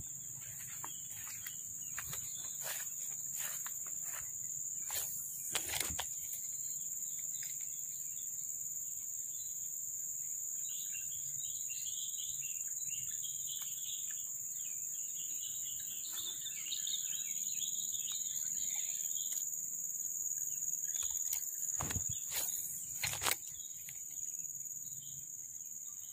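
A steady, high-pitched insect drone runs throughout. Birds chirp for several seconds in the middle. A few sharp knocks or clicks sound, the strongest near the start and again near the end.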